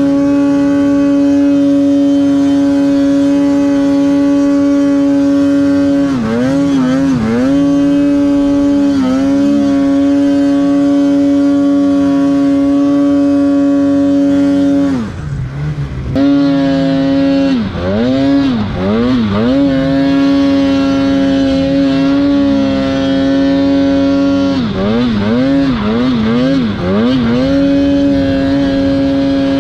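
Polaris RMK 850 two-stroke twin snowmobile engine with aftermarket twin pipes, held at high revs under load in deep snow. Its pitch dips and recovers in quick wobbles several times as the throttle is feathered, and it nearly drops off for about a second midway before revving back up.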